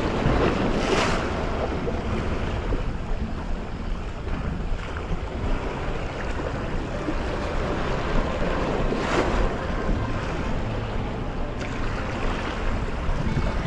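Small sea waves washing and breaking against rocks, with wind rumbling on the microphone. Two louder wave surges come about a second in and about nine seconds in.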